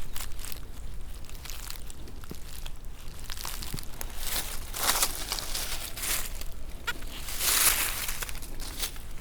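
Crunching and rustling of dry forest-floor leaf litter and soil being disturbed, in separate bursts about two seconds apart, the loudest near the end.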